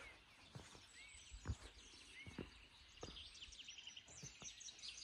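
Many small birds chirping and twittering at once, quick high overlapping calls, faint. A few soft knocks sound among them, the loudest about a second and a half in.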